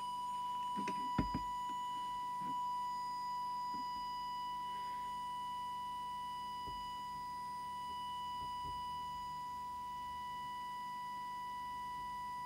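A steady, unwavering test tone from an audio oscillator, the signal used to set a CB transmitter's FM deviation. There are a couple of faint clicks about a second in.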